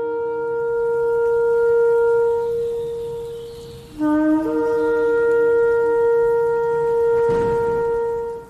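Shofar (ram's horn) blowing two long sustained blasts, broken by a short gap about four seconds in. The second blast starts on a brief lower note, then jumps up to the held higher tone.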